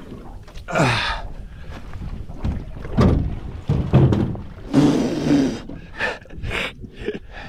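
A large barramundi thrashing at the side of the boat on a tight line: splashing and several heavy thuds as it crashes against the boat's fittings, loudest around three and four seconds in.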